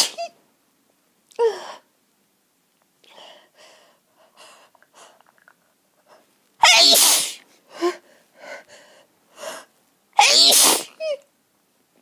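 A person with a head cold sneezing repeatedly: a short sneeze about a second and a half in, then two loud, full sneezes a few seconds apart in the second half, with quick, faint intakes of breath and sniffs between them.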